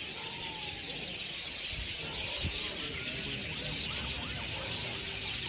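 A large flock of birds chattering together at their evening roost tree: a dense, unbroken mass of chirps, with a few separate calls rising and falling above it.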